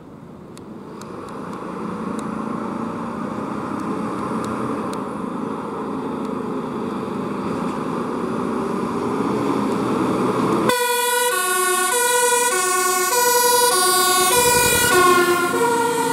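Mercedes-Benz fire engine's diesel engine growing louder as the truck pulls out and comes closer. About ten seconds in, its two-tone siren switches on, stepping back and forth between a high and a low pitch as the truck drives past on an urgent run.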